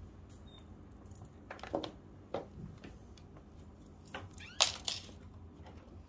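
Thin plastic bag crinkling in a few short crackles as a cat shifts around inside it.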